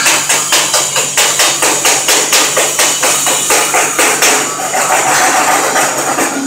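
Chipping hammer striking a stick-weld bead in quick, even blows, about four a second, knocking the slag off the hot weld. The blows thin out about four seconds in.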